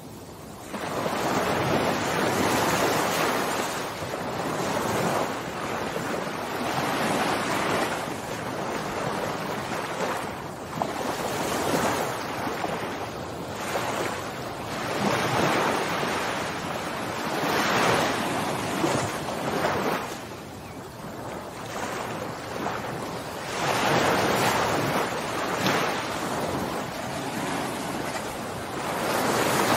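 Ocean surf: waves breaking and washing up a beach, the rush swelling and ebbing every few seconds.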